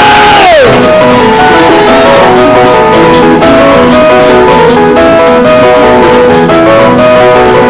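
Live gospel praise band playing an instrumental passage, with quick melodic notes over a steady beat. A singer's held note slides down and ends about half a second in.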